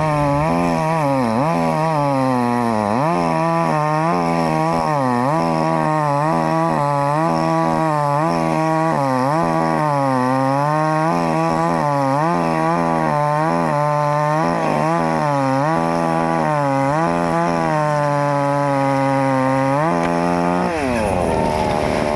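Gas chainsaw at high throttle cutting wood, its engine pitch dipping and recovering over and over as the chain bogs under load. Near the end the throttle is let off and the engine note falls away.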